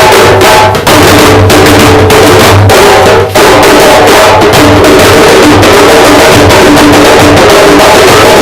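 Very loud music with drumming: a pulsing low drum beat under sustained pitched tones, with two brief drops about a second in and a little after three seconds.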